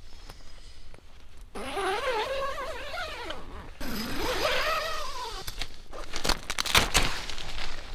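Sheep bleating twice, each bleat a long wavering call, followed about six seconds in by a quick run of sharp rasping clicks.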